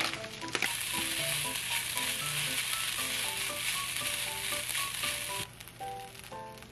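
Ketchup fried rice sizzling in a frying pan as it is stirred with a wooden spatula. The sizzle cuts off suddenly about a second before the end, leaving light background music.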